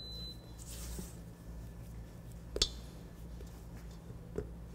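Scraping cookie dough down the sides of a stainless steel stand-mixer bowl, with one sharp knock against the bowl about two and a half seconds in and a lighter one near the end.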